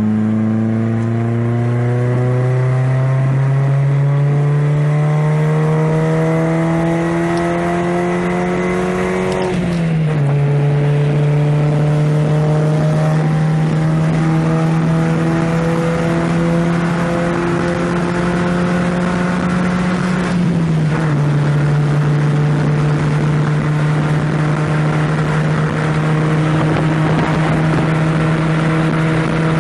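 BMW E30 1.6 four-cylinder engine with a custom-made sport exhaust line, heard from inside the cabin while the car accelerates. The engine note climbs, drops at an upshift about ten seconds in, climbs again, drops at a second upshift about twenty seconds in, then holds nearly steady.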